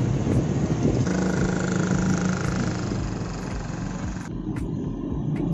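Riding a motorcycle in town traffic: a steady rush of wind on the microphone over engine and road noise. The higher part of the rush drops off a little past four seconds in.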